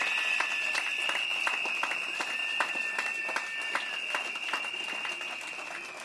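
Crowd applauding with scattered hand claps, over a shrill whistle held steadily throughout and a second, lower whistle tone sounding twice for a second or two each. The applause eases off toward the end.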